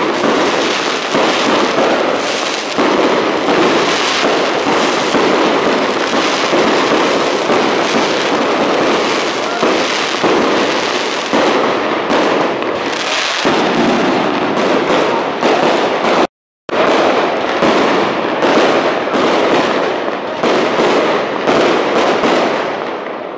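Aerial fireworks display going off overhead: a dense, near-continuous barrage of bangs and crackles. The sound cuts out completely for a moment about two-thirds of the way through.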